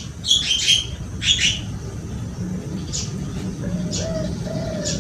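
Spotted dove (tekukur) cooing, a run of low arching coo notes that starts past the middle and repeats. Before it come quick bursts of high chirping from small birds, with single high chirps scattered through.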